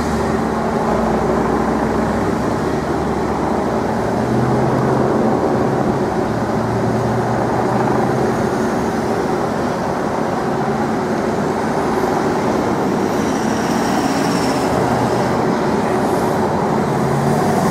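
Cars, vans and SUVs in a motorcade driving slowly past, with a police motorcycle running alongside: a steady mix of engine and tyre noise.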